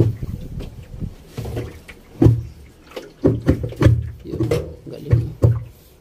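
The drum of an LG top-load washing machine being handled and fitted back into place: a series of dull thuds and knocks, coming closer together after about two seconds in.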